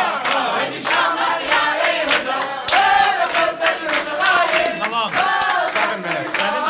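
A crowd of guests singing together, with hands clapping along.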